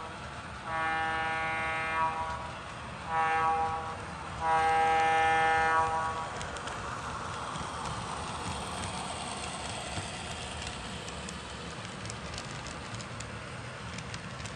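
Model diesel locomotive's sound-system horn blowing a long, a short and a long blast, the end of a grade-crossing signal. Then a steady running rumble with light clicking as the hopper cars roll past.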